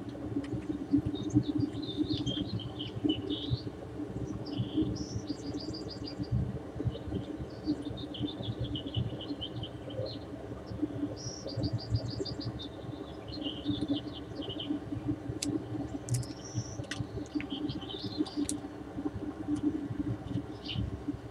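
Small birds chirping outdoors in quick runs of repeated high notes, over a steady low rumble.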